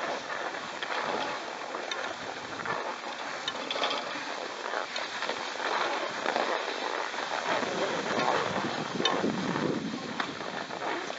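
Skis sliding over a packed snow track while towed up a surface drag lift: a steady scraping hiss with many small clicks.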